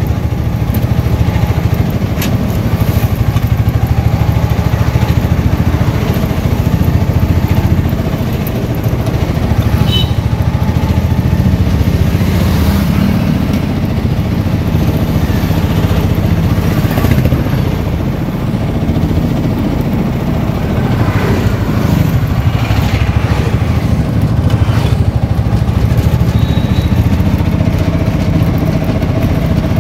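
Auto-rickshaw engine running steadily and loudly while driving, heard from inside its open cabin.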